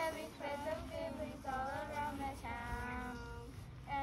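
A small group of children singing their school song together, holding a long note about two and a half seconds in.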